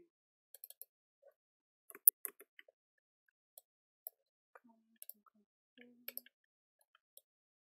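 Computer mouse clicks and keyboard keystrokes, sharp and irregular, the loudest about two seconds in.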